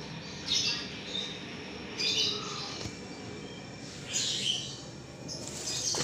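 Short, high bird chirps, four in all, spaced about a second and a half apart, over a steady low background hum.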